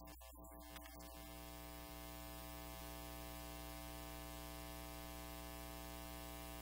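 Steady electrical buzz with hiss, a mains hum with many overtones. It drops in and out a few times in the first second, then holds steady.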